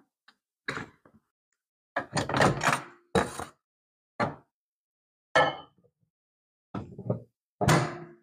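A run of short, separate knocks and clatters: a metal spoon against a ceramic mug, the mug set down inside a small microwave, and the microwave door pushed shut near the end.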